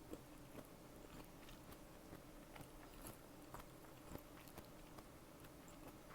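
Faint chewing: irregular, crunchy bites and small mouth clicks of someone eating a beef-tongue salad with nori and cheese-filled chikuwa.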